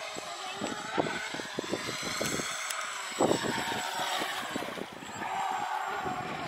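Radio-controlled speedboat running at speed: a high motor whine that wavers up and down in pitch, over an irregular patter of low thuds.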